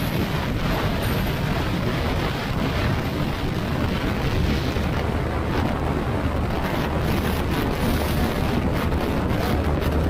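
Yamaha NMAX single-cylinder scooter being ridden at steady speed: the engine and CVT drivetrain run under wind rushing over the microphone, with no change in pace.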